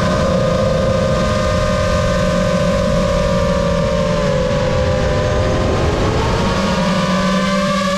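Brushless motors and propellers of a Lumenier QAV-S 5-inch FPV freestyle quad whining in flight, the pitch sinking about halfway through as the throttle eases off and then climbing back near the end.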